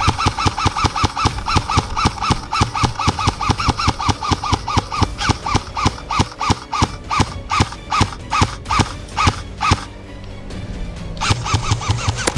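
Background music with a fast, even ticking beat of short clicks and notes, about four a second. The beat thins out halfway and stops near ten seconds, followed by a brief swell of noisy sound near the end.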